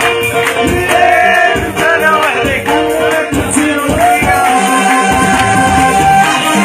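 Male singer performing an Arabic song live over a steady percussion beat and backing instruments, with a long held note from about four seconds in.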